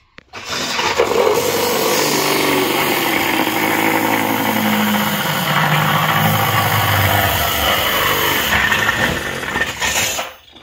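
Loud power-tool noise from HVAC vent work: a motor running under load, its pitch sliding down and back up. It starts about half a second in and cuts off suddenly near the end.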